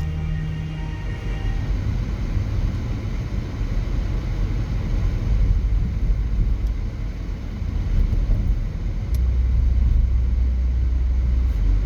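Steady low rumble of a vehicle in motion, the sound of riding inside a car or bus. Music fades out in the first second or so.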